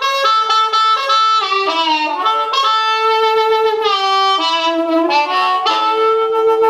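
Blues harp, a Seydel 1847 Noble diatonic harmonica in D, played through a Shure 520 microphone into a c. 1960 Danelectro Corporal 132 amplifier: a continuous phrase of held notes with short slides in pitch between them, with a full, saxophone-like amplified tone.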